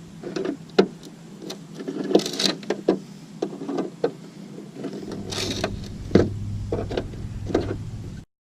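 Irregular sharp metal clicks and knocks, with two short hissing scrapes, as a wrench works the rusty license-plate security bolts, over a steady low hum. The sound cuts off suddenly near the end.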